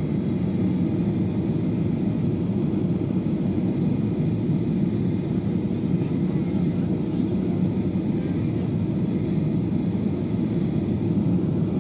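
Steady, even rush of engine and airflow noise inside the cabin of a Boeing 737-700 airliner, mostly low in pitch and unchanging throughout.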